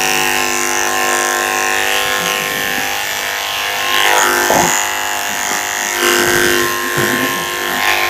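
Electric dog-grooming clippers fitted with a #4 blade, running with a steady hum as they go over a Yorkie's coat.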